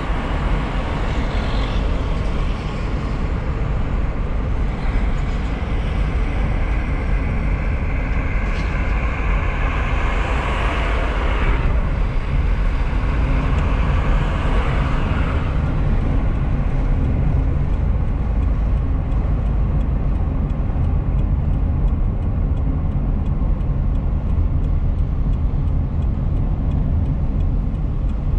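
Road and engine noise heard inside a moving car's cabin: a steady low rumble, with a higher hiss swelling over it for several seconds around the middle.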